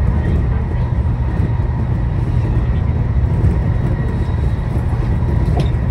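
JR Kyushu electric train running on the Kagoshima Main Line, heard from inside the front car: a steady low rumble of wheels on rail, with a faint steady tone above it. There is a brief click near the end.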